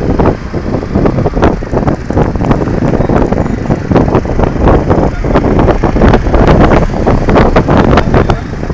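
Road traffic among scooters and motorbikes, with the microphone buffeted by wind and jostled in irregular loud jolts while moving.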